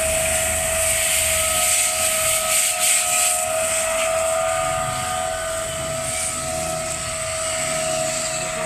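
Firefighting water spraying onto a burning pickup truck's cab: a steady hiss, with a steady whining tone alongside it.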